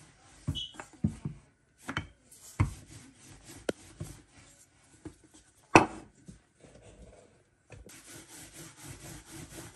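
Wooden rolling pin rolling out thin samosa dough on a floured board: scattered knocks and clacks of the pin against the board, the loudest just past halfway. In the last couple of seconds these give way to a steady, rhythmic rubbing as the pin rolls quickly back and forth.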